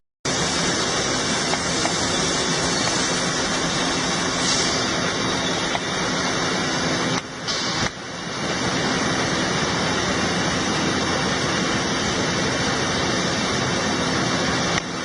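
Large industrial milling machine running, a steady dense machining noise with a faint hum, briefly dropping twice about seven to eight seconds in.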